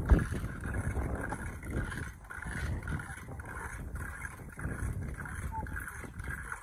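Wind buffeting the phone's microphone in an open field: an uneven, gusting rumble, with one sharp bump just after the start.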